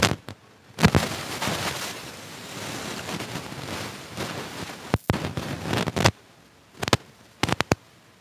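Close-up crunching and chewing of crispy fried street food: a dense crackle for several seconds, then a few short sharp crunches near the end.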